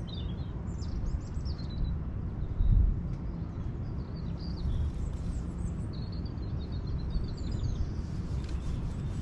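Small birds chirping repeatedly over a steady low rumble, with a brief louder bump about three seconds in.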